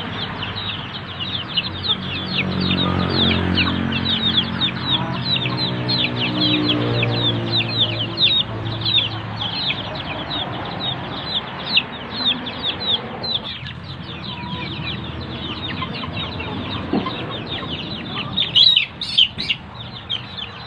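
A flock of Shamo gamefowl clucking while they peck at feed, over a steady stream of short, high, falling peeps. A low hum sits underneath from about two to nine seconds in, and a few louder, sharper calls come near the end.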